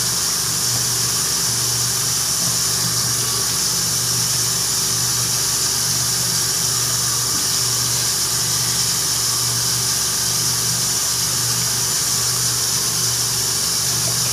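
A small electric motor whirring steadily, with a constant hiss of rushing air and a low hum that holds level throughout.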